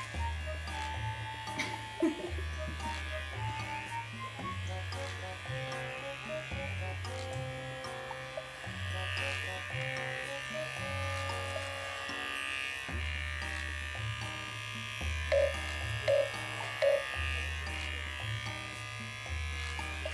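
Electric pet hair clippers buzzing steadily as they trim a Maltese's coat, under background music with a plucked bassline and a light melody. Three short louder sounds come in the second half.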